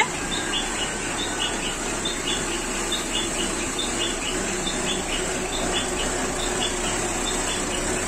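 Insects chirping in short regular pulses, about three a second, over a faint steady low hum.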